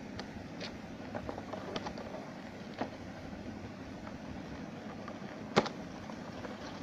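Scattered light clicks and taps from handling a small plastic model and its packaging, with one sharp click about five and a half seconds in, over a steady low background hum.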